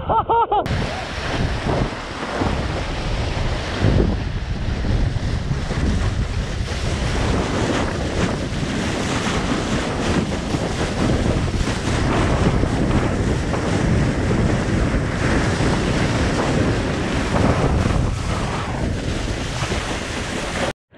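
Wind buffeting the camera's microphone over the wash of ocean water around a paddleboard, a steady rushing noise that cuts off suddenly near the end.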